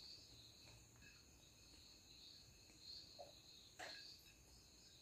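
Near silence with faint, steady insect chirring in the background, pulsing slightly, and a single faint click about four seconds in.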